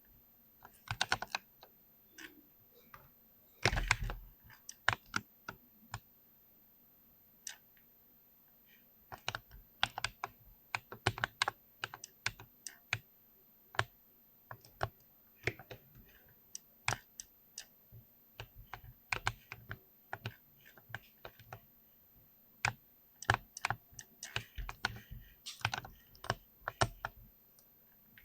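Typing on a mechanical keyboard with silver MX linear switches: keystrokes in irregular runs, fast bursts of clacks broken by short pauses.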